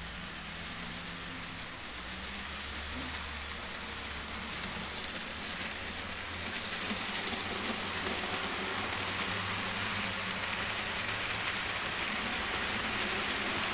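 A model electric train running along its track: a steady rattling hiss of wheels on the rails over a low hum, growing louder as the locomotive comes closer.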